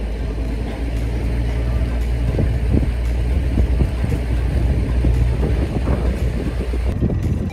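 Engine of a small fishing boat running, a steady low drone with some water and wind noise over it; the deepest part of the drone eases off near the end.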